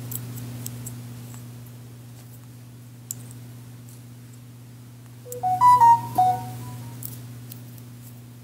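A short electronic chime of several quick beeps at changing pitches, a little over five seconds in, over a steady low hum.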